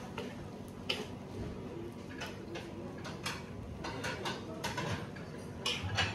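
Kitchenware clinking and knocking while pad thai is cooked: about ten light, irregular clicks and taps of a utensil on cookware, bunched around the middle and near the end.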